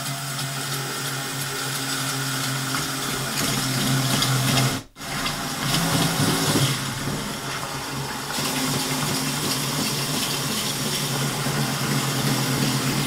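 Cordless drill turning a large hole saw slowly, in reverse, cutting through a plastic tote lid. It runs steadily, stops for a moment about five seconds in, then runs on.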